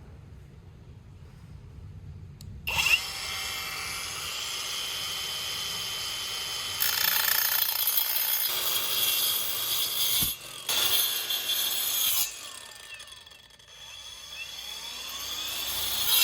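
Angle grinder fitted with a saw blade switching on about three seconds in and running with a steady high whine. It then cuts into material in two louder, rougher stretches with a short break between them, and its pitch shifts near the end.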